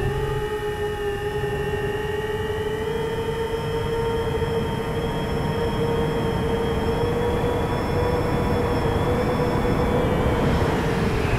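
Brushless motors and propellers of a 7-inch FPV quadcopter (iFlight DC7) whining steadily in cruising flight, the pitch creeping slowly upward. Low wind rush buffets the drone's onboard microphone underneath.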